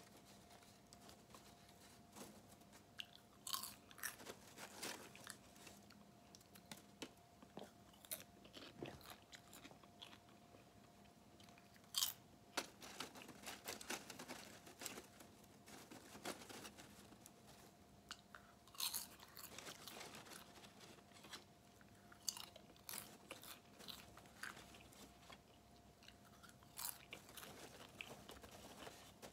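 A person chewing mouthfuls of butter-flavored Jiffy Pop popcorn, with irregular crunches and sharp crackles all through. A faint steady hum lies underneath.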